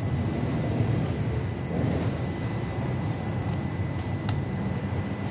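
Steady low background rumble, with two light metallic clicks about four seconds in as the shift mechanism parts of an opened manual gearbox are handled.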